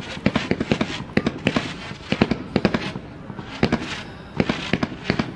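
Fireworks going off: a rapid series of sharp bangs and crackling pops in clusters, with a short lull about three seconds in.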